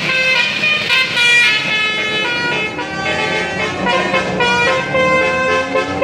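A bus's 'telolet basuri' musical air horn, a set of trumpets playing a melody in loud held notes. Several tones sound together and change every fraction of a second.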